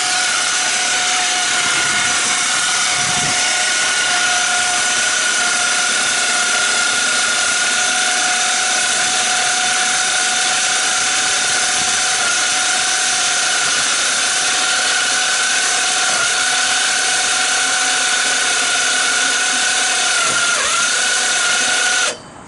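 Electric motor of a homemade shingle-hoist-style lift running steadily under power, a constant whine that cuts off near the end.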